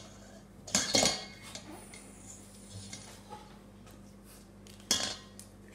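Metal sieve knocking against a stainless steel mixing bowl while flour and baking powder are sifted: two sharp clinks close together about a second in, faint light ticks, then another clink near the end.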